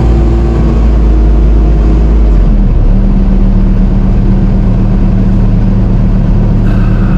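Bobcat T770 compact track loader's diesel engine running steadily at working revs, with a loud, even hum; its note shifts a little lower about two and a half seconds in.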